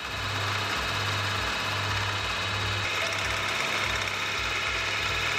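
Milling machine running with an end mill cutting scallops into a knurled clamp handle held in a collet block: a steady metal-cutting noise over the spindle's hum.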